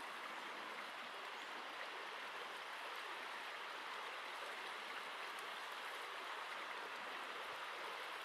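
Steady rush of a mountain stream: an even water noise with no change in level.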